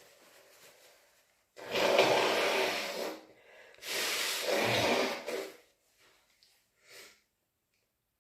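A person with flu blowing their congested nose hard, two long blows of about a second and a half each, one right after the other.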